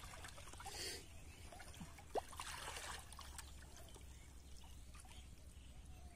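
Faint splashing and sloshing of shallow river water as hands grope through the muddy bottom, in soft swishes about a second in and again around two and a half to three seconds. A single brief chirp just after two seconds.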